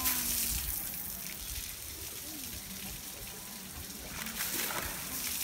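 Water splashing and trickling as an Asian elephant throws water over his back with his trunk, with a burst of splashing at the start and another near the end.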